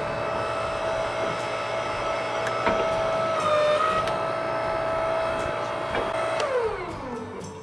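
Electric motor of a shop press running with a steady hum while bent wagon irons are straightened. Its pitch dips briefly about halfway through, then winds down near the end as it is switched off, with a few light metal clicks.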